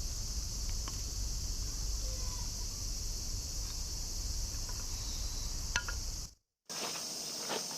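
Steady high buzzing of summer cicadas, with a low wind rumble on the microphone. After a brief drop-out about six seconds in, the rumble is gone and the buzzing goes on, with a few light clicks.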